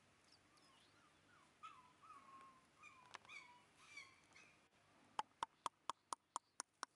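Shiba Inu puppy whimpering faintly, a few short, high, wavering whines. Near the end comes a quick run of about eight sharp clicks, about five a second.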